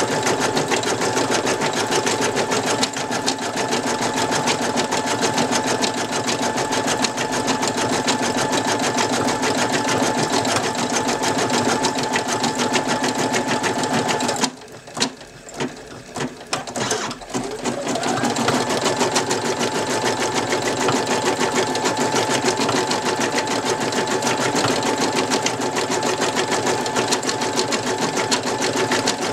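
Brother NV2600 embroidery machine stitching at a fast, even rate. About halfway it stops for a few seconds, with a few clicks, then starts again, its whine rising as it speeds back up.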